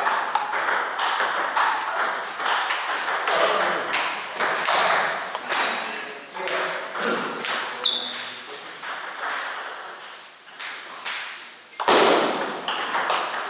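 Table tennis balls clicking off bats and table in a steady run of sharp ticks, with a louder hit near the end.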